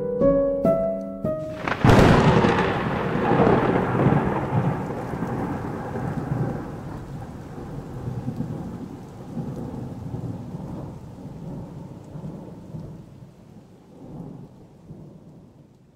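A few plucked music notes end about two seconds in, cut off by a sudden loud thunderclap. The thunder then rolls and rumbles away, fading slowly over the next dozen seconds.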